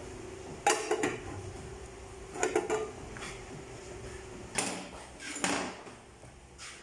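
Aluminium cooking pots and lids clanking a few times in short separate clatters, over a faint steady hum.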